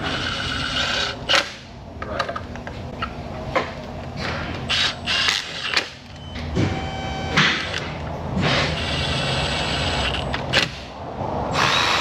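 Hand tools clinking and clattering during spark plug and coil work, with a short whir of a small power tool past the middle.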